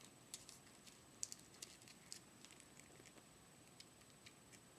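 Kitten suckling from a feeding bottle: faint, irregular little wet clicks and smacks of its mouth on the nipple, the loudest about a second in.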